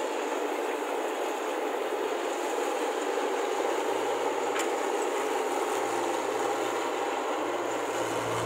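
New Holland combine harvester running steadily as it crawls along on its tracks.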